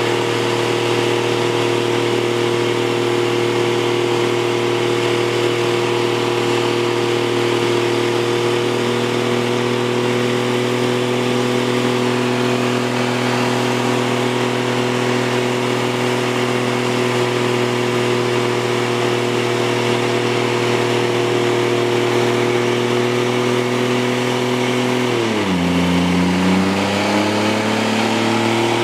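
Pickup truck engine held at high revs through a long stationary burnout, the rear tyres spinning on pavement under a steady hiss. About 25 seconds in, the revs drop sharply, then climb back up.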